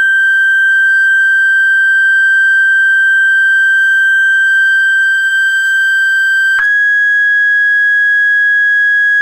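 Steady high-pitched sine-wave tone driving a cymatics plate, with faint overtones. About two-thirds of the way through it clicks and steps up slightly in pitch, then holds steady again.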